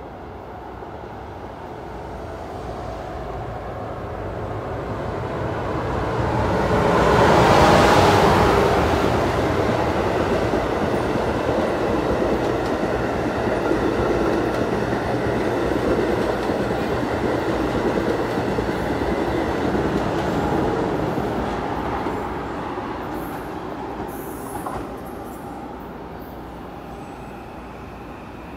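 Amtrak Acela Express trainset passing through the station at speed: the sound swells as it approaches, is loudest as the power car goes by about eight seconds in, and carries on as a steady rush of wheels on rail while the coaches pass. It fades away over the last several seconds.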